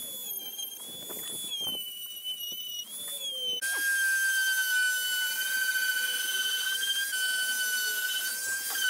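Dremel rotary tool with a sanding bit whining at high pitch, its note wavering as it grinds the fibreglass edge of a surfboard. A bit over a third of the way in it gives way abruptly to a louder, steadier, lower whine from a round-pad electric orbital sander sanding the board.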